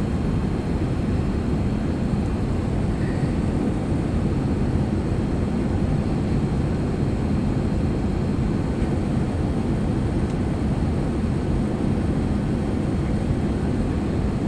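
Steady low drone of airliner cabin noise, heard from inside the passenger cabin.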